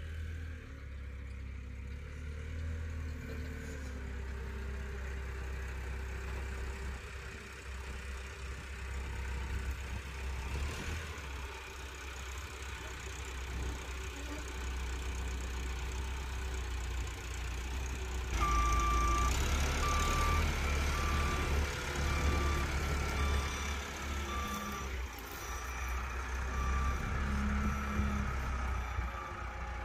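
Rough-terrain forklift's engine running as it moves in and lifts a car. Just past halfway a reversing alarm starts, beeping about once a second for several seconds.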